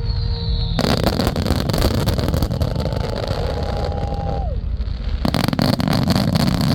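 Fireworks finale barrage: dense continuous crackling over low rumbling booms, which briefly eases about four and a half seconds in and then starts again.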